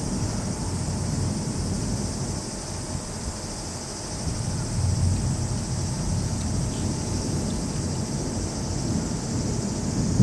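Torrential downpour during a thunderstorm: a steady hiss of heavy rain over a low, uneven rumble that eases about a third of the way in and builds again near the end.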